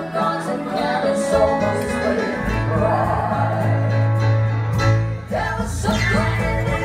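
Live band performing a song: several voices singing together over electric guitar, bass, keyboard and drums. A long low bass note is held through the middle, and the music dips briefly a little after five seconds in.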